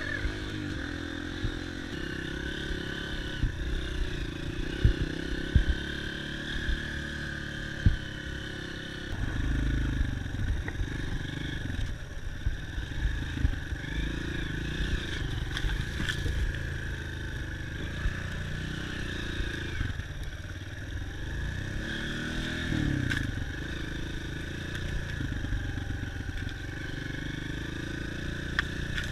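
Dirt bike engine running while being ridden, its revs rising and falling. A few sharp knocks and clatters come in the first several seconds.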